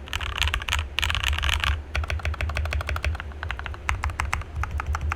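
RK61 mechanical keyboard with lubed and filmed Gateron Red linear switches, lubed and clipped stabilizers, and foam, PE-foam and tempest mods, being typed on. Two fast flurries of keystrokes come in the first two seconds, then a run of separate key presses. A steady low hum runs underneath.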